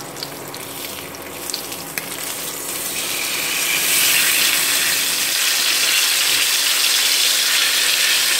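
Salt-cured pork belly frying in oil in a pan: a softer sizzle with a few sharp pops for the first three seconds, then a dense, steady, louder sizzle from about four seconds in.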